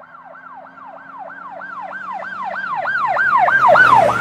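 Electronic siren in a fast yelp: a falling tone repeating about four times a second, growing louder as it approaches and passing with a rush of noise near the end.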